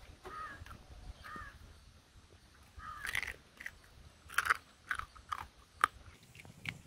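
Crab shell cracking and crunching between the teeth as crab pieces are bitten and chewed, a series of sharp cracks starting about three seconds in.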